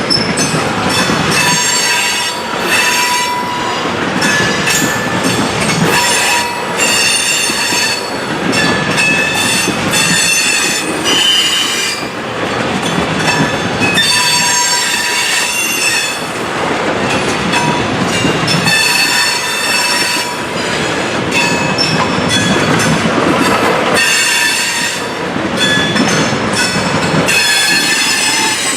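Freight cars of a mixed freight train rolling past, their steel wheels squealing on and off in high-pitched squeals over the steady rumble of wheels on rail.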